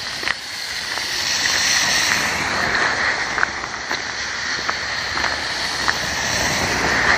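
Footsteps crunching in snow, a scatter of short crunches, over a steady rushing hiss that swells about a second in and holds.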